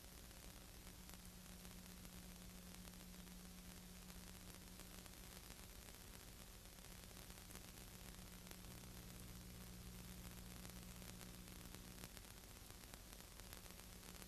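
Near silence: a steady hiss of recording noise with a low, constant hum; no sound from the race cars themselves.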